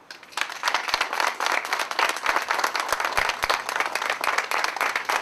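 A small crowd applauding: many hands clapping at once, starting about half a second in.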